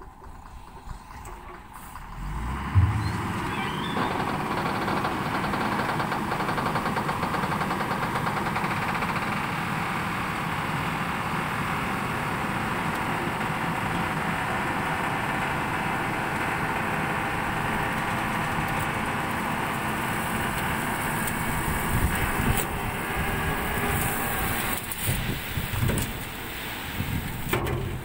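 Dump truck engine held at steady high revs to drive the hydraulic hoist as the loaded body tips up. It picks up sharply about three seconds in, and in the last few seconds the sound turns uneven as the soil begins to slide out of the raised body.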